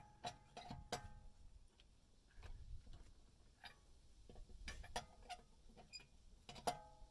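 Metal clinks of a four-way cross lug wrench on a car wheel's lug nuts as it is fitted on and turned. The clicks are sharp and scattered, a few with a short metallic ring, and the loudest comes near the end.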